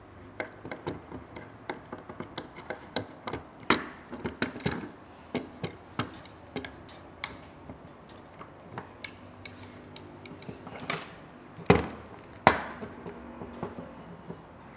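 Irregular small clicks and taps of binding-post terminals and wire leads being handled on a carbon-resistor board as the connection is moved to another resistor, with two sharper knocks about three-quarters of the way through.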